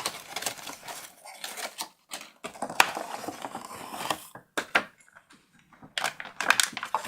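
Unboxing handling noise: packaging and small plastic parts being handled. It comes as an uneven run of sharp clicks, taps and rustles, with a quieter stretch a little past the middle.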